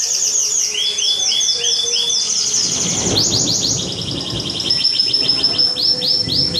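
Domestic canary singing: rapid trills of one note repeated many times a second, switching to a new trill every second or so.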